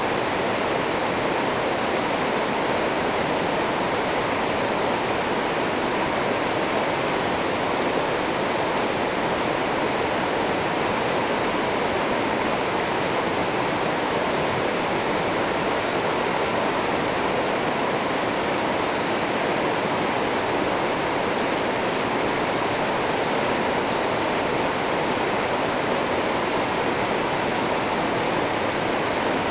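River rapids rushing over rocks: a steady, unbroken wash of white water.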